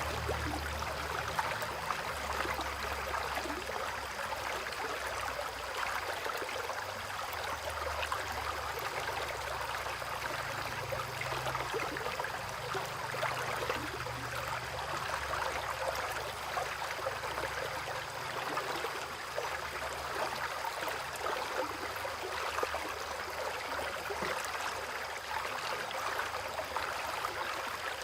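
Rain falling beside a flowing stream: a steady rush of running water with a fine patter of drops throughout.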